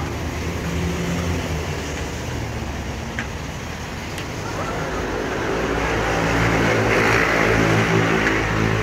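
Road traffic running steadily, with a low engine hum. A vehicle's tyre noise on the wet road swells louder over the last few seconds as it passes close.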